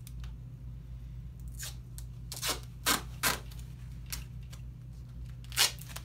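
Duct tape being pulled off the roll and torn, several short ripping rasps with the loudest near the end.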